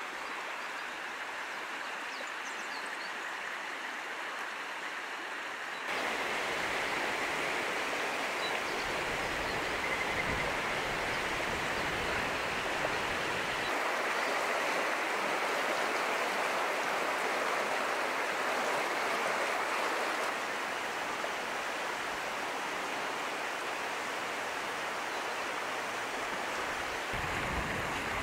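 Shallow river rushing steadily over a gravel and stone bed. The rush grows louder about six seconds in and shifts slightly a few more times.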